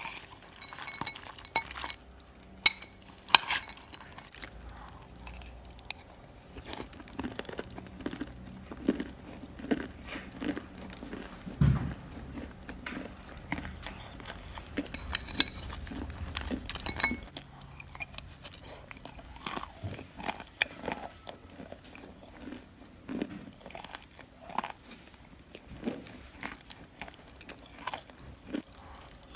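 Close-up mouth sounds of wet Ural clay being bitten and chewed off a metal spoon: many short crunches and squishy chewing. Two sharp clicks a few seconds in are the loudest.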